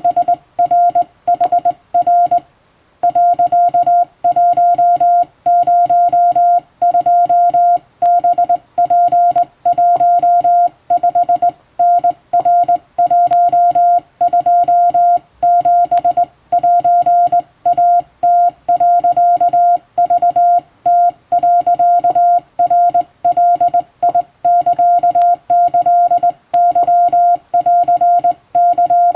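Japanese Wabun Morse code sent by hand on a telegraph key: a steady mid-pitched beep keyed on and off in dots and dashes, with a brief pause about two and a half seconds in.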